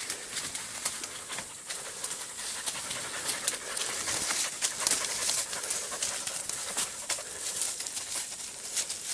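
Hunting laika panting near the handler, with crackling rustle of forest undergrowth.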